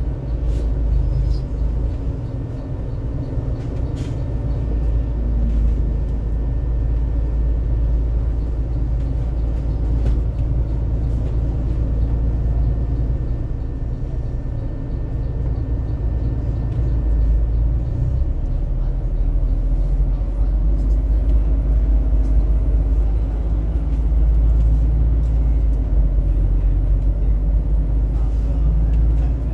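Cabin sound of a TransJakarta double-decker bus on the move: a steady low rumble of engine and road, with a few faint clicks.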